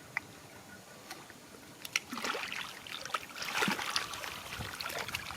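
Shallow water splashing and sloshing in irregular bursts, starting about two seconds in, mixed with sharp little clicks and drips.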